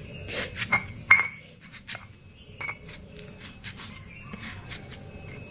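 Stone pestle grinding and pressing a soft mash of bread and fermented tempeh in a stone mortar, with irregular knocks and scrapes of stone on stone, the loudest about a second in.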